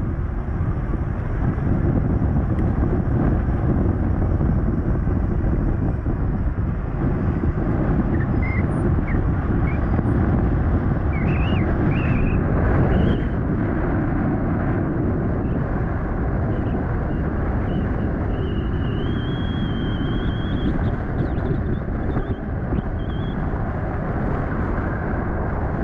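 Wind rushing over the microphone on a moving electric bike, a steady low rumble mixed with traffic noise. A few faint high squeals come through in the middle.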